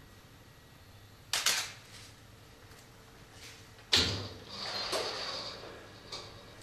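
Two sudden knocking noises, a short one about 1.4 s in and a louder one about 4 s in that trails off over about a second and a half.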